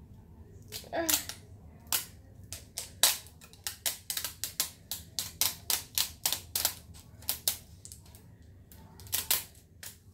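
Plastic wrapping on a toy surprise ball crackling as it is pulled and peeled off by hand, in an irregular run of sharp crackles, two or three a second.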